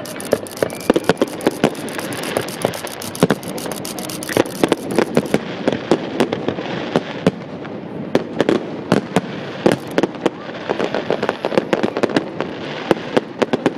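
Aerial fireworks bursting: a fast, irregular run of sharp bangs and crackles that comes in clusters, with a few louder reports standing out.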